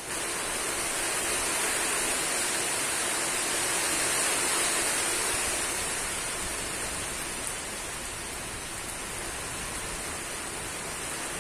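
Heavy storm rain, a steady rushing hiss that swells as it begins and eases slightly past the middle.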